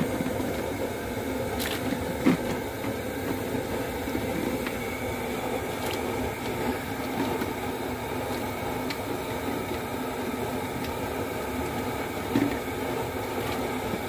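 Steady drone of a boat's Cummins diesel engine running, with a couple of light knocks.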